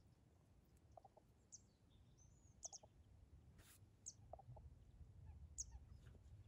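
Near silence with faint outdoor ambience: four short, high bird chirps about a second and a half apart over a low, faint rumble.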